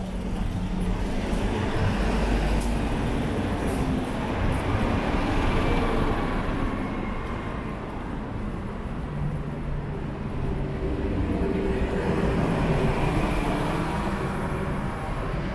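Traffic noise: passing vehicles make a steady rumble that swells and eases.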